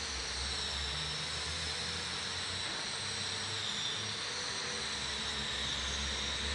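Steady background rumble under a constant hiss, with faint high whines and no distinct event.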